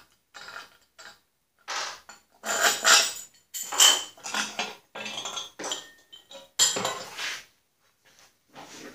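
Irregular metallic clinks and clanks of metal parts being handled around a Snapper rear-engine rider's steel fender, where a freshly pressed-in bushing is being checked for seating. The clatter comes in a run of short bursts, some ringing briefly, and stops about a second before the end.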